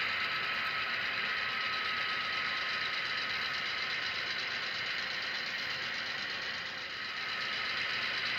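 A model locomotive's LokSound DCC sound decoder playing a steady engine sound through its small speaker, with the model's motor and gears running.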